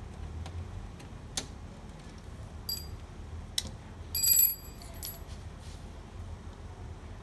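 A metal tool and small metal parts clinking and tapping against a laser printer's frame in about five separate strikes. The loudest, about four seconds in, is a short ringing metallic clink.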